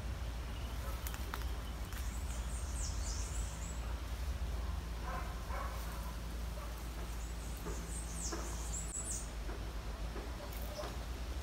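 Small birds calling: two bouts of quick, high chirps that sweep downward, about two seconds in and again about eight seconds in, over a steady low rumble.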